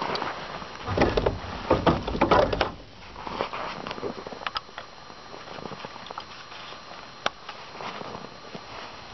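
Boots crunching on packed snow and knocks and rattles from handling the snow-caked metal frame of a Yellowstone compaction drag, a dense cluster in the first three seconds, then scattered light clicks and one sharp click later on.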